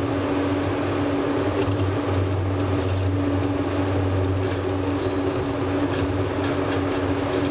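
Steady drone of a car driving on the highway, heard inside the cabin: engine hum and tyre and road noise at an even level.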